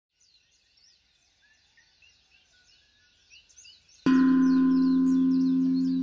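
Faint birdsong of quick repeated chirps. About four seconds in, a meditation bell is struck once and rings on with a low, layered tone that fades slowly, marking the start of the breathing cycle.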